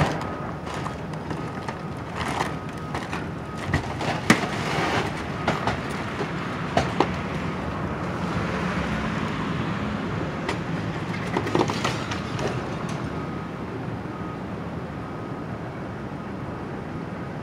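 Demolition excavator tearing into a building: the machine's engine runs steadily while sharp cracks, clanks and rattling of breaking material and falling debris come in scattered bursts through the first dozen seconds, then thin out to the engine alone.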